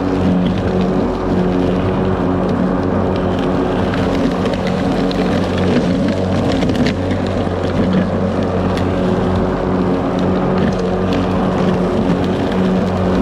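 Ryobi 40V brushless electric lawn mower running steadily at a constant pitch, motor and blade humming, with scattered sharp clicks throughout.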